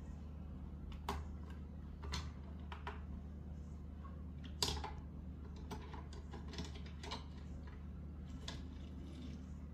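Small hard clicks and taps at irregular intervals, the loudest about four and a half seconds in, as a die-cast toy car carrier truck is handled. A steady low hum runs underneath.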